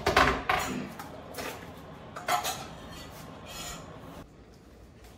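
Kitchen utensils and a cooking pot being handled: about five short scrapes and knocks spread over the first four seconds, then they stop.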